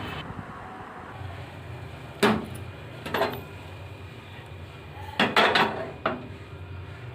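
Kitchen utensils and dishes clinking and knocking against each other in separate strikes: one about two seconds in, another a second later, and a quick cluster of clatter near the end, over a low steady hum.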